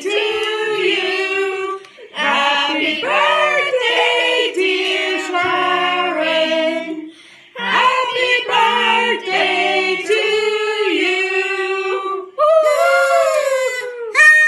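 A small group of voices, adults and children, singing together without accompaniment, in sung phrases of a few seconds with short breaks between them.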